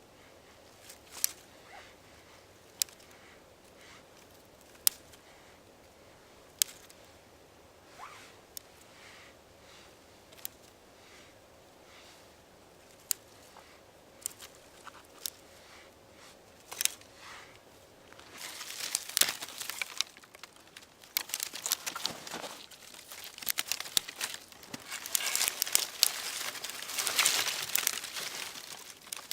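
Dry branches and kindling splinters cracking and crunching. At first single sharp snaps come every second or two; after about eighteen seconds they give way to dense, continuous crunching and crackling.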